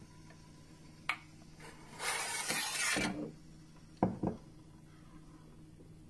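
Klarstein BellaVita espresso machine: a click as the steam knob is turned, then a hiss from the steam wand about two seconds in that lasts about a second, followed by two quick knocks, over a steady low hum.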